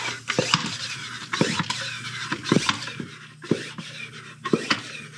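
Pump-up bug sprayer converted into a transmission fluid pump, at work: irregular clicks and knocks, about one or two a second, over a steady hiss.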